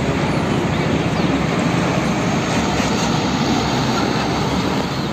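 Heavy tanker truck driving along a road: a steady diesel engine rumble mixed with tyre and road noise.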